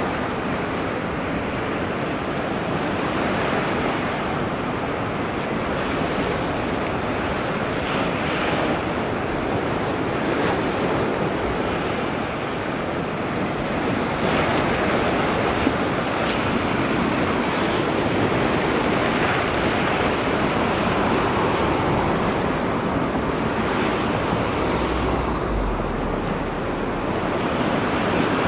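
Small waves breaking and washing up a sandy shore, a steady surf hiss, with wind buffeting the microphone and a brief low rumble near the end.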